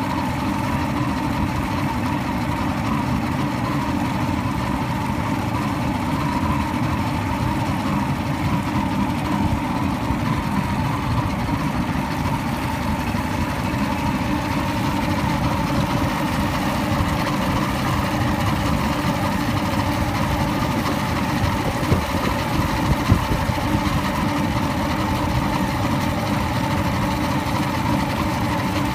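Evinrude outboard motor idling steadily, an engine the owner is troubleshooting for a rough idle that coughs or sneezes at low rpm. Two short sharp knocks stand out a little past two-thirds of the way through.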